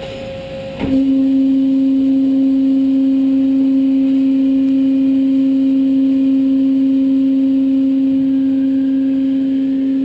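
Gun drilling machine starting a steady hum: a sharp click about a second in, then a loud, unchanging low hum that holds to the end.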